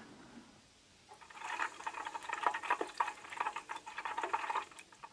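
Hot linseed oil and beeswax foaming in a saucepan, sizzling with a dense crackle of popping bubbles that starts about a second in and stops shortly before the end.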